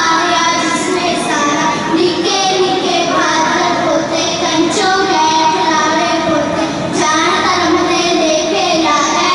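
Girls' voices reciting a Punjabi devotional kavita in a sung, chanting style through microphones.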